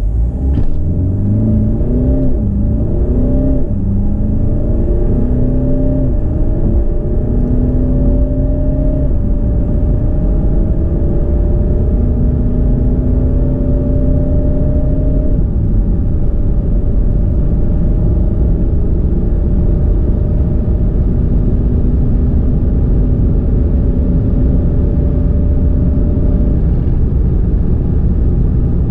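Alfa Romeo Giulia's 2.2-litre four-cylinder turbodiesel accelerating hard from a standstill on its original factory engine map. The engine note rises in pitch and drops back at each automatic upshift, with the shifts coming further apart as speed builds.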